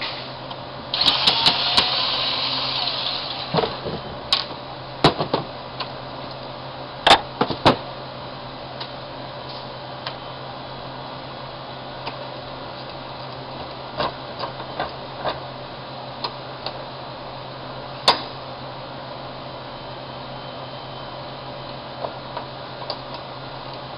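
Scattered clicks and knocks of tools and parts being handled, with a brief whirring about a second in that fades over the next two seconds, over a steady low hum.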